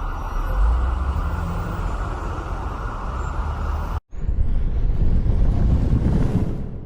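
Sound-effect recordings of vehicle noise, a steady engine-and-traffic rumble. It cuts off abruptly about four seconds in and a second, similar recording starts.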